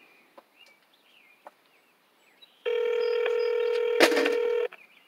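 One two-second telephone ringback tone through a phone's speaker, starting a little over halfway in: the outgoing call is ringing at the far end and has not yet been answered. A sharp click sounds near the end of the ring.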